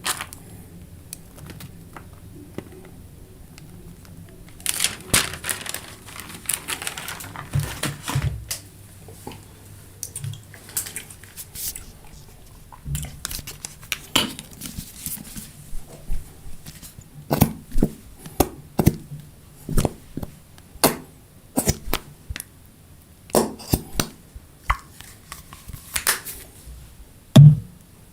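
Close-miked crunchy fried food being bitten and chewed, with sharp crunches every second or so. About five seconds in there are a few seconds of wrapper crinkling.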